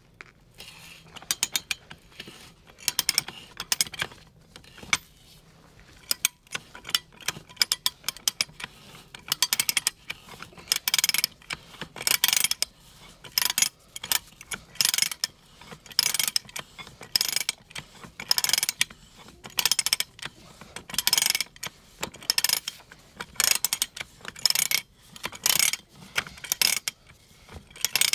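Manual ratcheting pipe threader being run in reverse to back the die head off a freshly threaded galvanized pipe end. The ratchet clicks in short bursts about once a second.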